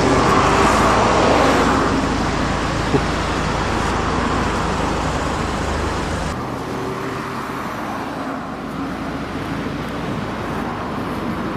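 Road traffic noise: cars driving past on a street, loudest in the first couple of seconds as a vehicle goes by, then a steady hum of traffic.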